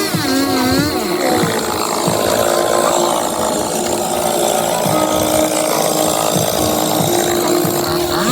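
Chainsaw engine running: its pitch swings up and down in the first second, then holds steady through the rest.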